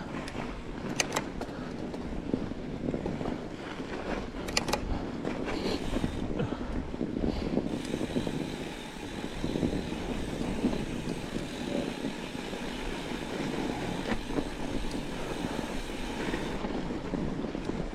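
Fat bike riding over a snowy trail: steady tyre and drivetrain rumble with wind on the microphone, and a few sharp rattling clicks about a second in and again around four and a half seconds in.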